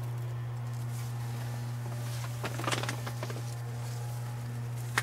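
Rustling as a hand pushes through pepper plant leaves, a short crackly burst about two and a half seconds in, over a steady low hum, with a single click at the very end.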